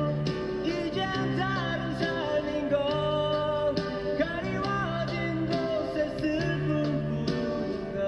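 Background music: a song with guitar accompaniment and a gliding melodic lead over a repeating bass line.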